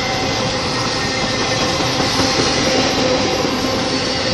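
Empty intermodal spine cars of a freight train rolling past: a steady, even rumble and clatter of steel wheels on the rails, with a faint ringing tone underneath.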